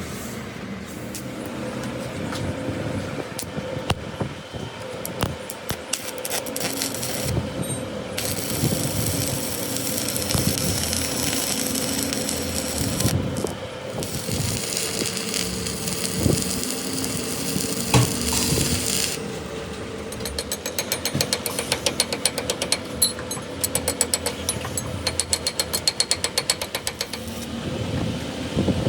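Workshop tool noise from a CV joint repair: scattered knocks, two spells of hissing about 8 and 14 seconds in, then a long run of quick, even clicking like a ratchet, over a steady hum.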